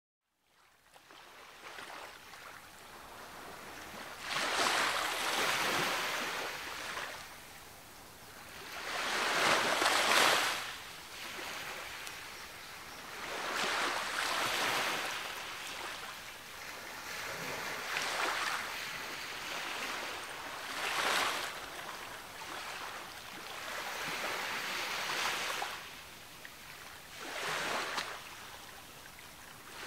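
Ocean waves breaking and washing up the beach, surging about every four to five seconds with quieter wash between; the loudest breaks come about five and ten seconds in.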